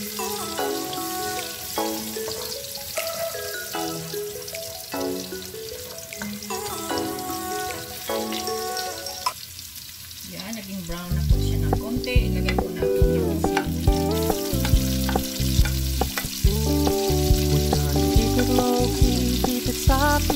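Chopped garlic sizzling in hot oil in a wok and being stirred with a spatula, under background music. A drum and bass beat comes into the music about halfway through.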